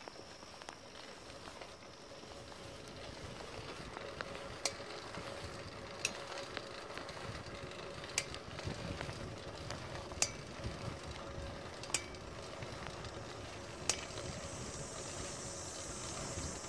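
Road bicycle drivetrain under pedalling, running steadily over the road with a sharp clicking about every two seconds, an unexplained click from the drivetrain.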